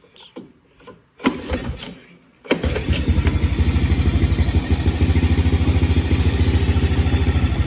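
Honda TRX90's small single-cylinder four-stroke engine being pull-started: a pull about a second in, then it catches about two and a half seconds in and runs steadily with a fast, even putter.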